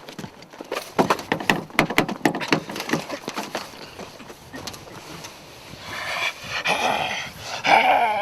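A quick run of sharp knocks, then a bobcat's wavering yowl that swells near the end.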